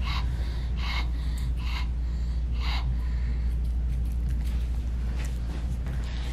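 Shih Tzu panting heavily, with loud breathy huffs about once a second, followed by a few light clicks in the second half.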